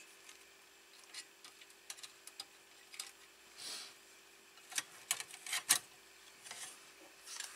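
Scattered small clicks and taps of hands handling an LCD monitor's metal chassis plates and wire connectors during reassembly, with a few brief rustles and a cluster of sharper clicks a little past the middle. A faint steady hum sits underneath.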